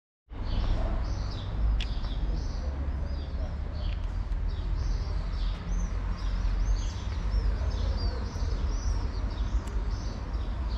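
Small birds chirping over and over, in short high arching notes, above a steady low rumble; a single sharp click comes about two seconds in.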